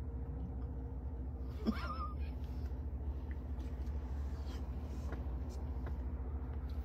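Steady low hum of a truck cab with the engine idling. About a second and a half in, one short squeaky cry rises and falls in pitch.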